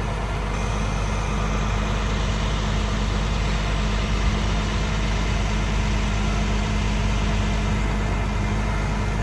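Heavy truck engine idling steadily, a low even hum that doesn't change.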